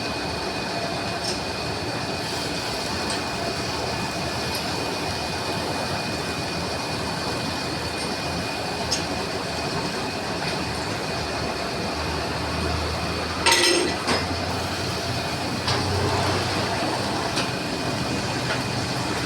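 Lathe running steadily with a constant high whine over its mechanical noise. A sharp metallic clink rings out about thirteen seconds in.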